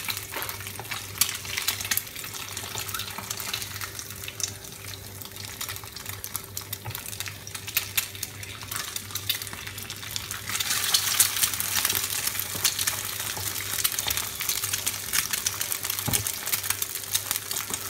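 Eggs frying in hot oil in a nonstick pan: a steady sizzle full of small pops, getting louder and denser about ten seconds in, with a wooden spatula scraping and nudging at the eggs.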